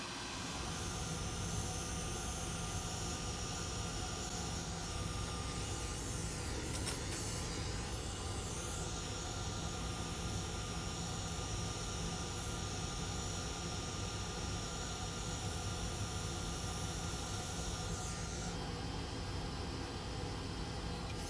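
Steady hiss of blowing air with a faint hum and thin steady tones, its upper part changing about three-quarters of the way through.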